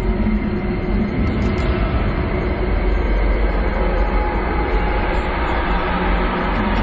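A loud, steady rumbling drone, heavy in the low end, used as a tension-building sound effect.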